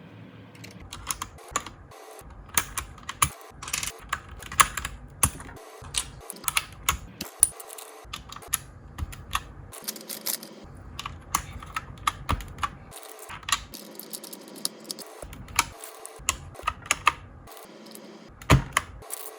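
Typing on a keyboard fitted with Mario keycaps: a quick, irregular run of key clicks that starts about a second in.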